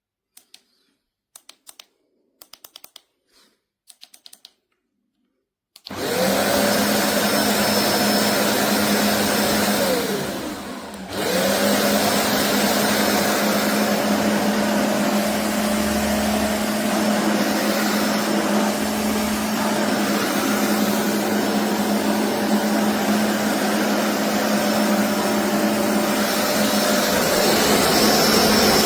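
A few faint clicks, then about six seconds in a BISSELL Revolution HydroSteam carpet cleaner's motor starts and runs loud and steady with a constant hum. Around ten seconds in it briefly winds down in pitch and spins back up.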